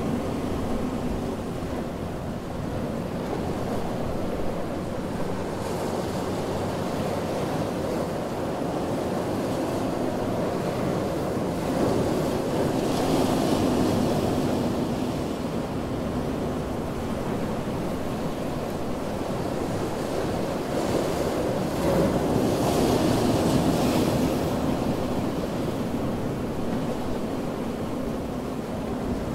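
Ocean surf: a steady wash of waves, swelling louder as a wave breaks about twelve seconds in and again a little over twenty seconds in.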